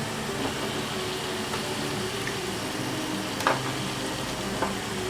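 Chicken pieces going into a pan of fried masala: a steady hum and hiss, with two sharp knocks. The louder knock comes about three and a half seconds in, the other about a second later.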